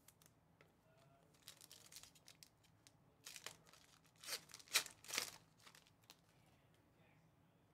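Faint plastic rustles and clicks of a card being slid into a clear sleeve, then a sealed Panini Spectra card pack's plastic wrapper torn open in four quick crinkling rips, from about three seconds in to just past five seconds.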